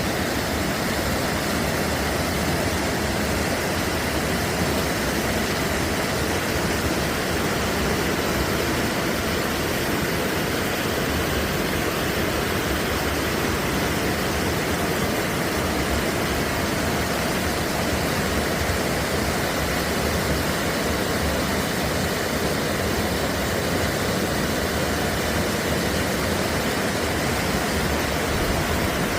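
Steady rushing noise of heavy rain and running water, unchanging throughout.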